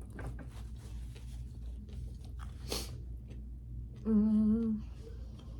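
Close-up mouth sounds of someone chewing food, with small wet clicks and one louder crackle about two and a half seconds in. Then, about four seconds in, a short hummed "mmm" that is louder than the chewing.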